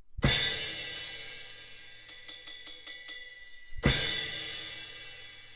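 A 17-inch Zildjian A Custom crash cymbal, hit hard twice about three and a half seconds apart. Each crash rings bright and fades slowly, with a quick run of about six lighter strikes in between.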